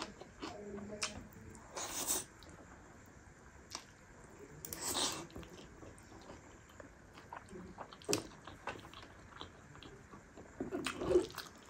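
Close-miked eating: biting and chewing of fried omelette and noodles, with a few louder short bursts about two and five seconds in and a cluster just before the end.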